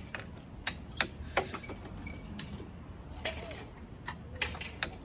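Wrench on the crankshaft bolt clicking and clanking in irregular sharp knocks as the engine is turned clockwise by hand, bringing it round to its timing marks for the belt change.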